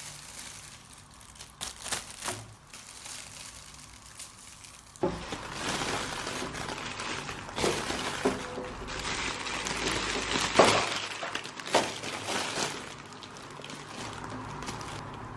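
Hands handling Christmas decorations: crinkling, rustling packaging with light clicks and clinks. The rustling grows busier about five seconds in, with several sharp clicks over the next several seconds.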